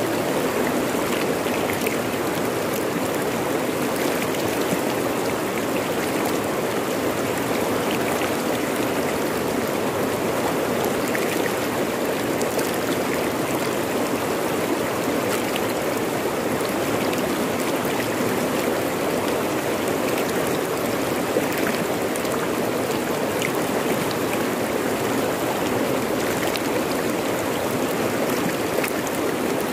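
Fast-flowing river rushing over rocks: a steady, even rush of water.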